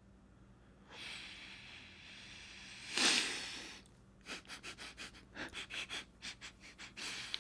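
A man breathing hard through his mouth against a pen held at his lips: one long breathy blow about three seconds in, then a quick run of short puffs and sniffs, about five a second.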